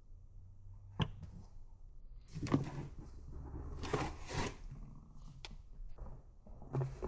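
Handling noise as plastic containers are picked up and moved: a sharp knock about a second in, two rustling, scraping bursts in the middle, then a click and a thud near the end.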